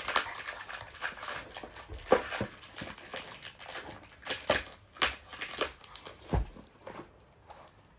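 Packaging crinkling and crackling as a parcel is torn open and handled by hand, in irregular crackles with a few louder ones, dying down near the end.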